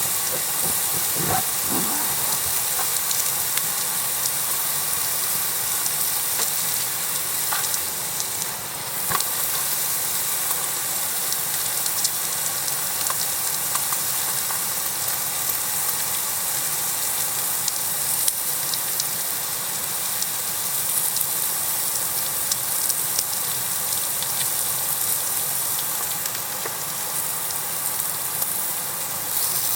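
Food sizzling on an iron griddle over a campfire: a steady hiss with small crackles scattered through it.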